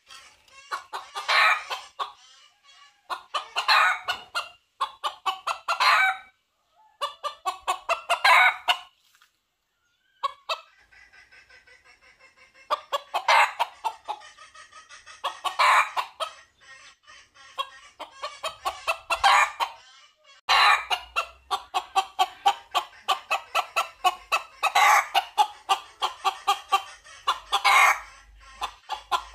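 Red junglefowl calling: short crows in bursts every two to three seconds, each made of quick pulses, with rapid runs of clucking between them.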